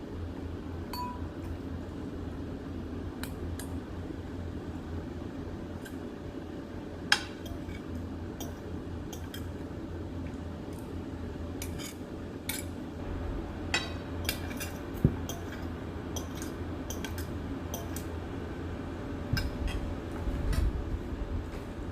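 Metal utensils clinking against pots and dishes in scattered sharp clinks, the loudest about seven seconds in and more of them in the second half, over a steady low hum.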